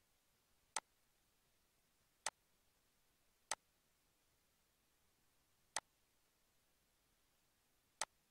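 Five single computer-mouse button clicks, irregularly spaced one to two seconds apart, over near silence.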